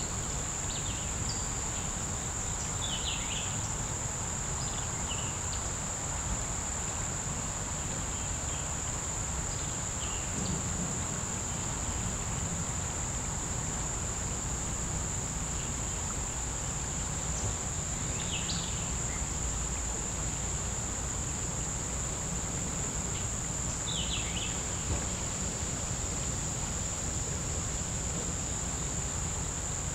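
Steady, high-pitched chorus of summer insects, a continuous unbroken drone, with a few short chirps now and then over a low, steady outdoor rumble.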